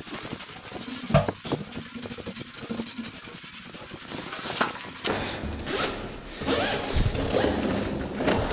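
Zip on a food courier's insulated delivery bag being pulled open, with rustling and a few knocks: a run of short raspy strokes in the second half.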